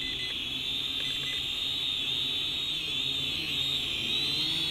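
Eachine E32HW quadcopter hovering, its motors and propellers giving a steady, slightly wavering high whine over a low hum. Short beeps from the transmitter's trim buttons sound at the start and again about a second in.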